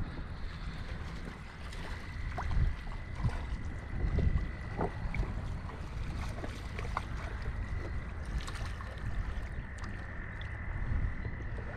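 Wind buffeting the microphone, with gusts about two and a half and four seconds in, over small waves lapping against a rocky shore. Faint scattered clicks and a faint steady high whine sit beneath it.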